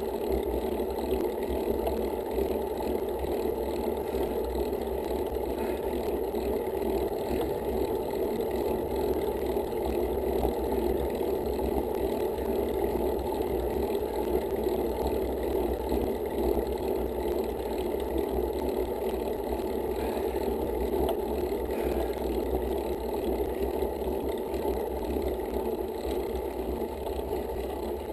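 Steady wind rumble and tyre-on-asphalt noise from a road bike riding along, picked up by a handlebar-mounted action camera.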